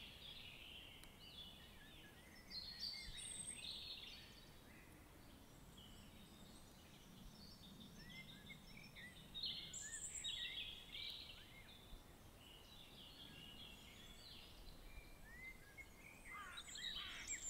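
Faint birdsong: scattered short chirps and whistles, several birds calling on and off over a soft steady hiss.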